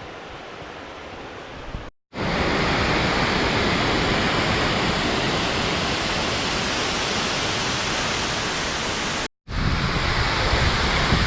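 Steady, loud rush of a large waterfall's falling water. It is heard in three stretches, split by two abrupt cuts to silence about two seconds in and about nine seconds in; the rush is louder after the first cut.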